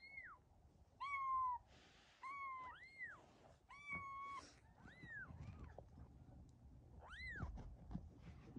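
Newborn kitten mewing: a run of short, high, thin cries, about one a second, some rising and falling in pitch and a few lower and flatter.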